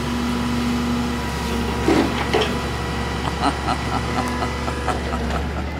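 Diesel engine of a grapple-claw bulk trash truck running steadily while its hydraulic knuckle-boom crane folds back to its stowed position. A steady low hum with a constant tone, and a couple of knocks about two seconds in, then lighter clicks.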